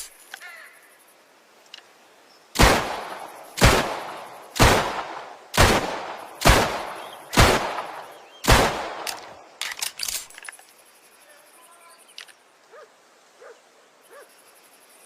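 Seven shots from a 1911 pistol, fired at a steady pace of about one a second, each followed by a short echo. A few lighter metallic clicks come right after the last shot.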